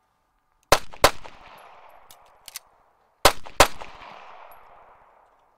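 Beretta M9 9 mm pistol fired twice in quick succession, then a few light metallic clicks of a rapid magazine reload, then two more quick shots; each pair of shots trails off in a long echo.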